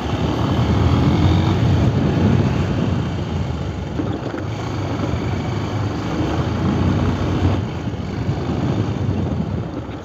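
Motorcycle engine running while riding, mixed with road and wind noise on the mounted microphone; it grows quieter near the end.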